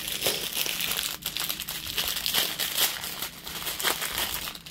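Clear plastic bags of diamond-painting drills crinkling as they are handled, with irregular crackles.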